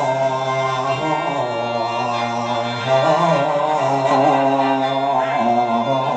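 Mor lam singing: a long, wavering sung vocal line over a steady droning reed accompaniment.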